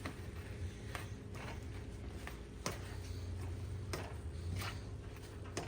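Irregular light clicks and scrapes of a spoon against cookware as minced garlic is scooped in and stirred into sautéing vegetables, over a steady low hum.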